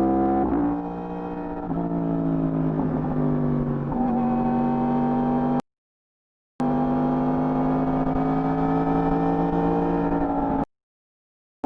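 Yamaha R1 inline-four engine on its stock exhaust under way, with a few quick gear changes in the first few seconds and then holding steady revs that climb slightly. The sound cuts out completely twice, about a second each time.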